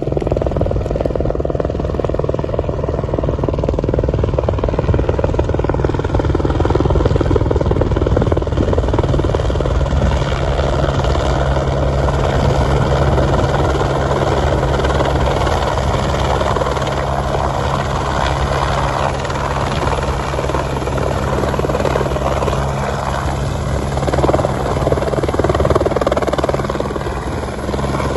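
Helicopter running steadily at close range, a continuous loud rotor and engine drone with a steady low hum, swelling slightly near the end.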